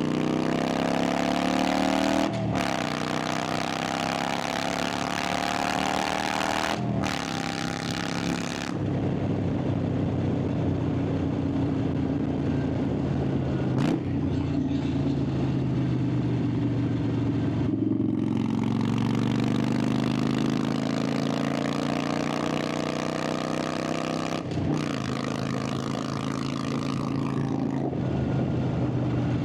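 Harley-Davidson Sportster 883's air-cooled V-twin exhaust note while riding, accelerating hard with the pitch climbing. It breaks briefly several times as the rider shifts up a gear. In the middle it settles to a steadier, lower note before pulling up through the gears again.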